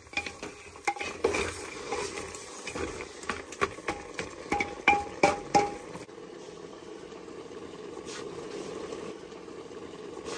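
Pork leg pieces being stirred in a hot pot. For about six seconds a ladle scrapes and knocks against the pot with short ringing clinks, and then only a steady sizzle from the pot remains.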